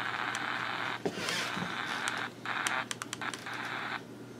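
Grundig E Traveller VII portable radio hissing static from its small speaker while it is tuned through the band. The hiss breaks off briefly a little past two seconds in and stops about four seconds in, with light clicks of its buttons.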